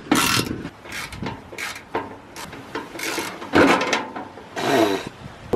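Hand socket ratchet clicking in repeated strokes, roughly one or two a second, as bolts on the van's underbody guard are undone.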